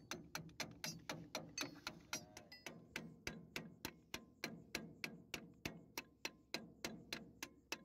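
Rapid, even tapping, about five light blows a second, as a small ball bearing is knocked into the housing of a straw reaper's bell crank.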